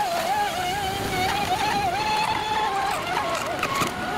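Engine of a radio-controlled model racing boat running at speed on the water, a steady high whine whose pitch wavers up and down as the throttle and turns change.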